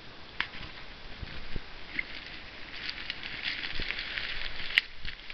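Rustling and crackling of dry brush and leaf litter as someone pushes through on foot, twigs scraping past clothing. It grows busier partway through, with one sharp click near the end.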